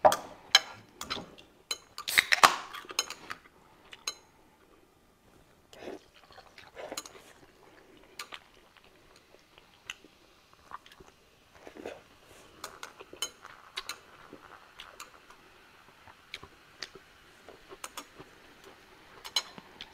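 Table sounds while eating: chopsticks and cutlery clinking on plates and glass, with chewing. There are several loud clinks in the first three seconds. Soda from a can is poured into a glass of ice in the second half, with a faint fizzing hiss.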